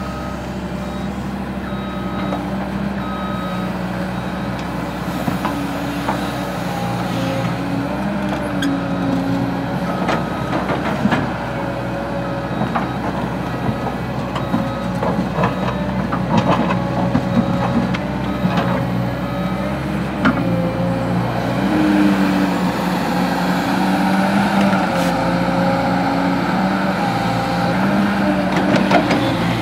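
Cat 315D L hydraulic excavator working, its diesel engine running steadily and rising in pitch about two-thirds of the way in, with scraping and knocks as the bucket digs into dirt and stones. A reversing alarm beeps about once a second through the first dozen seconds.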